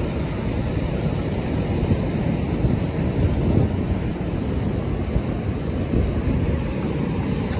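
Ocean surf breaking and washing up the beach, mixed with wind buffeting the microphone: a steady, even rushing noise, heaviest in the low range.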